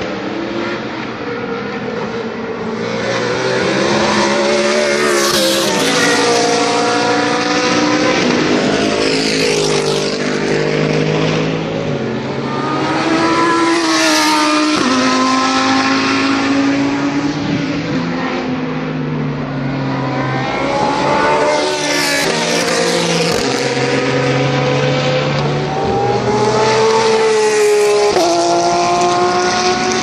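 GT3 race cars at full throttle, several passing one after another. Their engines climb in pitch through each gear and drop at every upshift.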